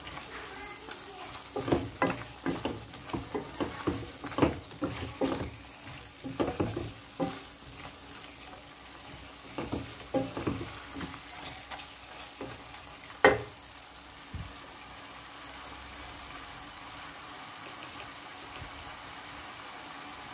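Silicone spatula stirring chicken and spice masala in a non-stick kadai over a sizzle, with repeated scraping strokes through roughly the first eleven seconds. A single sharp knock comes about thirteen seconds in, after which only the steady low sizzle of the masala frying remains.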